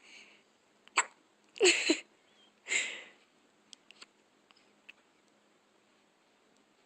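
Baby hiccuping: three short, sharp hiccups in the first three seconds, about a second apart, the second the loudest.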